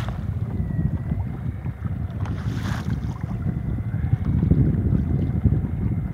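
Wind buffeting the microphone on a kayak out on choppy open water, a dense uneven low rumble, with a faint steady high whine underneath and a brief hiss about two and a half seconds in.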